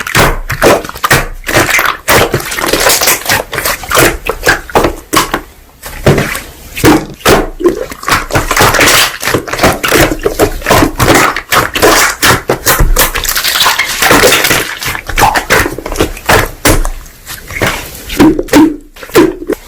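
Slime being squeezed, pressed and folded by hand, making a dense, irregular run of crackling and popping clicks.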